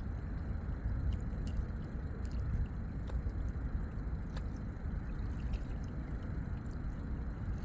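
Lakeside water ambience: small lapping and dripping water sounds with faint scattered ticks over a steady low rumble.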